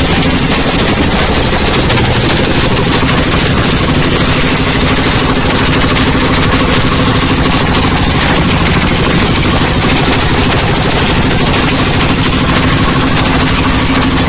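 Coconut husk shredding machine (cocopeat and cocofiber decorticator) running, a loud, steady mechanical clatter over a constant drone.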